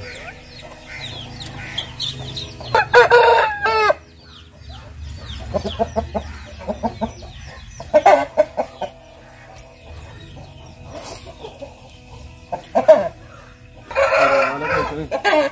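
Fighting roosters crowing and clucking: a loud crow about three seconds in, a run of short clucks a few seconds later, and another loud call near the end.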